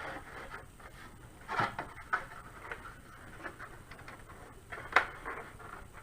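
Hands working the plastic shell and clips of a Cube 3 3D printer: scattered light plastic clicks and rubbing, with a sharp click about five seconds in.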